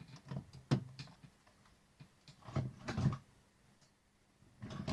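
Small objects being handled on a workbench: a few sharp clicks and light knocks, with a cluster of knocks around the middle.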